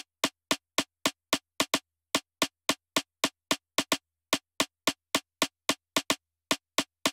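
Drum machine playing a bare rhythm of short, sharp clicks, about four a second, with a few beats left out, and nothing else sounding.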